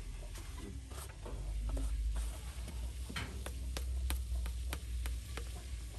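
A string of light, sharp clicks, about three a second in the second half, as a white plastic bottle of tea leaves is uncapped and tipped and tapped over the pot. There is a steady low rumble underneath.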